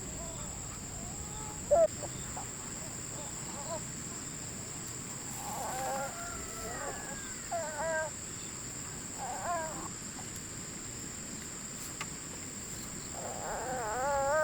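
Animal calls: short cries with a wavering pitch, a handful of them, the longest near the end, over a steady high-pitched whine.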